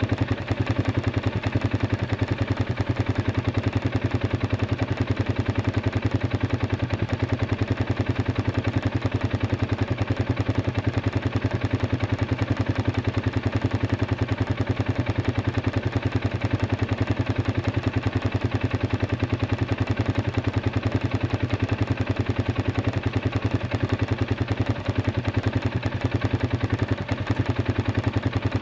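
Arctic Cat 500 ATV engine idling steadily with a fast, even firing rhythm, running again now that the dead battery no longer stops it from cranking.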